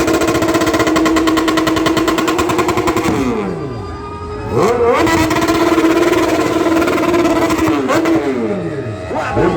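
Motorcycle engine held at high revs, twice letting the revs fall away and then revving back up.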